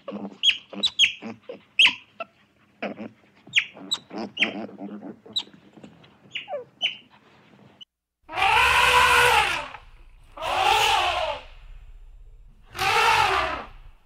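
Quick irregular chirps and clicks, then, after a short break, an animal's loud drawn-out call three times. Each call lasts about a second, rises then falls in pitch, and comes about two seconds after the one before.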